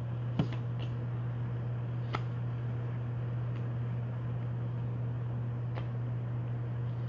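Trading cards being flipped through by hand, with a few short clicks as card edges snap past each other, the sharpest about half a second in. A steady low hum runs underneath.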